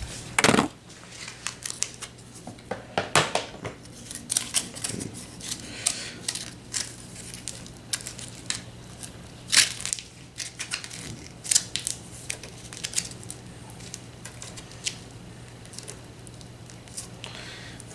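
Aluminium foil being handled, crinkling and crumpling with sharp crackles at irregular intervals as it is torn and shaped by hand.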